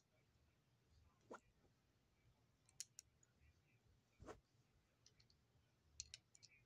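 Faint, scattered clicks of small plastic Lego pieces being handled. There are two soft knocks, one about a second in and one past the middle, and a quick cluster of clicks near the end.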